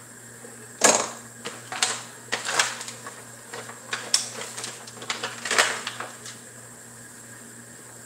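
Kitchen objects being handled and set down: a run of sharp knocks and clatters, the loudest about a second in, that stop about two-thirds of the way through, over a steady background hum.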